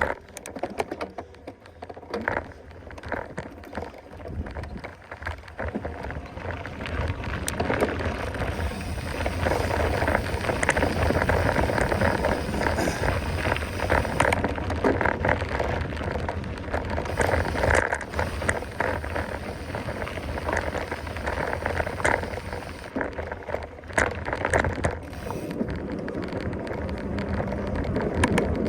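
Mountain bike riding over a rough dirt trail: tyres crunching and the bike rattling over bumps, a steady noisy rush full of small knocks and clicks.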